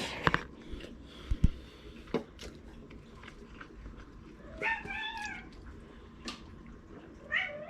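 A house cat meowing: one drawn-out meow about five seconds in and a shorter rising one near the end, with a few light clicks and knocks in between.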